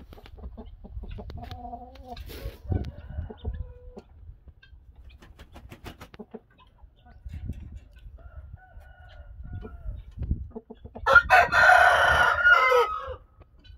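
Rooster crowing once, a loud call of about two seconds near the end, after a few soft low clucks.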